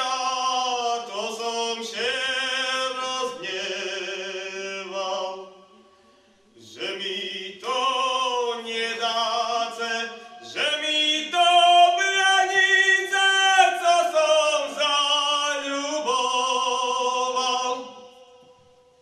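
A man's voice singing a slow Slovak folk song unaccompanied, in long sung phrases with a short break about six seconds in, fading away near the end.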